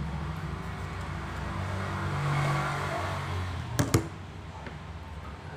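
Two sharp plastic clicks close together about four seconds in as the kettle's plastic power base is taken apart by hand, over a low background rumble that swells midway.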